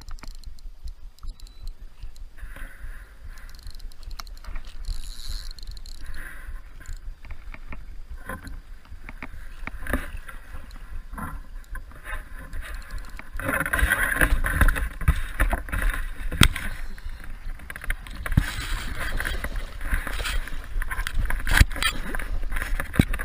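Water splashing and sloshing with scattered knocks as a hooked carp is played and brought in to the landing net, busier and louder from about halfway through.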